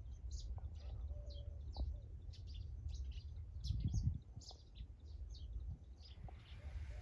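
Birds chirping: many short, high calls scattered throughout, faint, over a steady low rumble.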